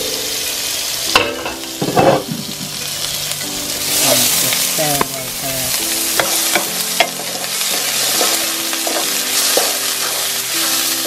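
Chopped onion, garlic and ginger sizzling in hot olive oil in a non-stick frying pan, stirred with a wooden spatula that scrapes and knocks against the pan many times.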